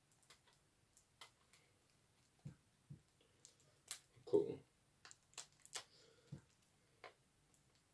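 Fingers picking at the plastic wrapping on a CD case: scattered small clicks and crinkles, with one short louder sound about four seconds in.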